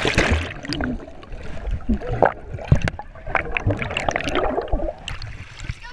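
A splash as a chest-mounted GoPro in its waterproof housing goes under, then water sloshing and bubbling around it, heard muffled from underwater.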